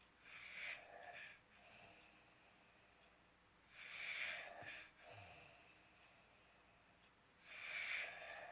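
A sleeper snoring: three rough, noisy breaths about four seconds apart, each lasting about a second, with quiet breathing in between.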